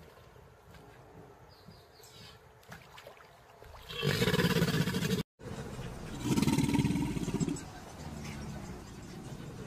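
Crocodiles growling: two loud, rough, low growls, the first about four seconds in with a hissing edge, the second about two seconds later, split by a brief dropout.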